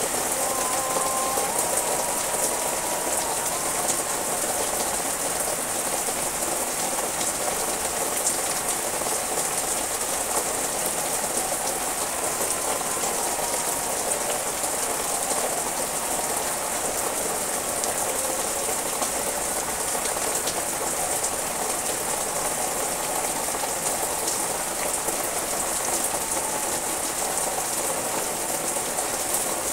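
Steady rain falling on trees and garden foliage, an even, unbroken hiss.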